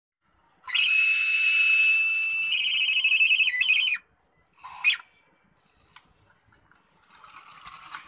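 A loud, high electronic whistling tone, held steady for about two seconds and then warbling rapidly for about a second before cutting off sharply.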